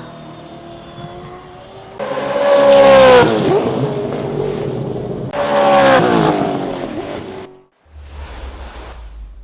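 Two Gen3 Supercars V8 race cars passing at speed one after the other, each engine note loud as it arrives and then falling in pitch as it goes by. The sound cuts off suddenly about three-quarters of the way in, followed by a brief hiss and a low rumble.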